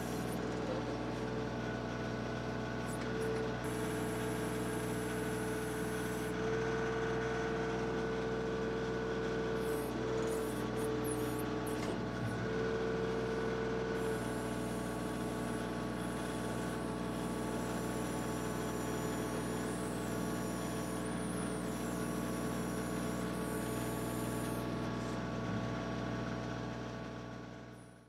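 TYM 2515 compact tractor's diesel engine running steadily while it works the backhoe attachment digging a trench. A higher steady whine rides over the engine for about ten seconds in the first half. The sound fades out near the end.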